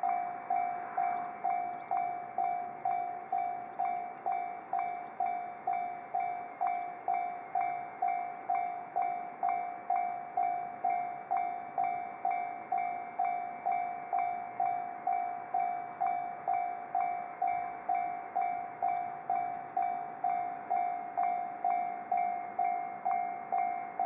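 Japanese railway level-crossing warning bell ringing, an electronic ding repeating evenly a little under twice a second.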